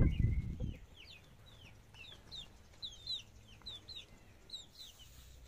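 Young chickens cheeping: a run of short high peeps, several a second, over a low rumbling noise that stops about a second in.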